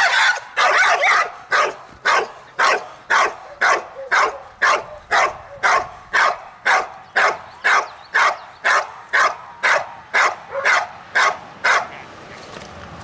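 Dog barking at a helper in the hiding blind, the bark-and-hold of IGP protection work: loud, even barks at about two a second that stop about a second before the end.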